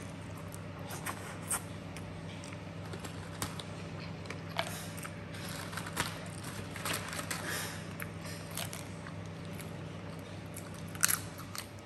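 Close-up eating sounds: chewing and crunching of crispy chips, with scattered sharp clicks, the loudest about eleven seconds in. A steady low hum runs underneath.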